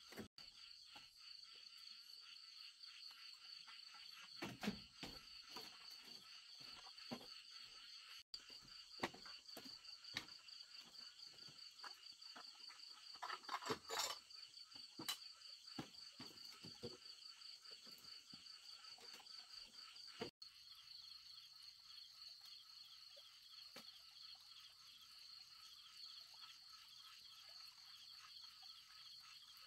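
Faint steady chorus of night insects, crickets trilling in a fast pulsing high buzz. Over it come scattered clicks and knocks of dishes being washed in a plastic basin, busiest around the middle.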